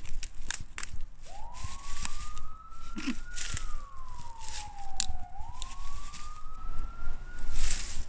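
Police siren sound effect: a single-tone wail that starts about a second in, rises, falls slowly and rises again, cutting off near the end. Footsteps crunch through dry leaves underneath it.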